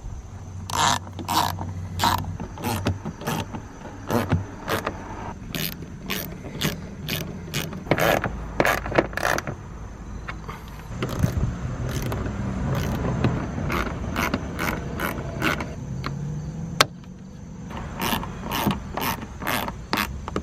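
Hand socket ratchet clicking in repeated runs as small 7 mm bolts are driven into the edge of a car door panel, with one sharper click near the end.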